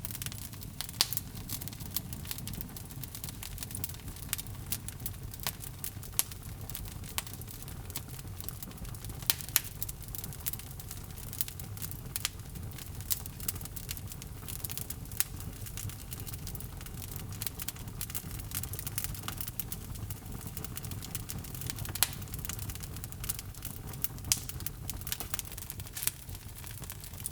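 Log fire burning in a fireplace: constant sharp crackles and occasional louder pops over a low, steady rumble of flame.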